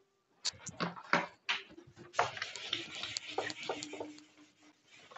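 Whiteboard being wiped with a duster: repeated rubbing strokes across the board's surface.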